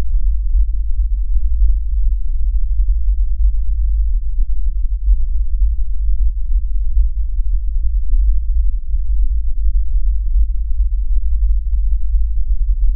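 A loud, steady low hum with nothing else above it.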